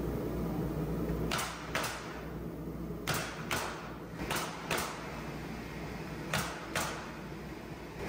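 Pneumatic nail gun firing eight sharp shots in pairs, nailing a wooden trim board to the wall. A low steady hum stops about a second in.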